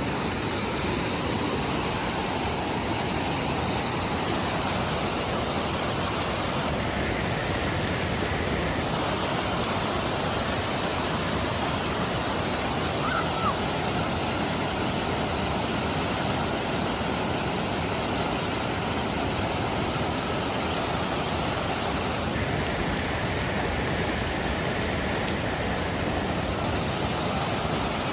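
Waterfall, a steady, even rush of falling water. A faint, brief chirp stands out about halfway through.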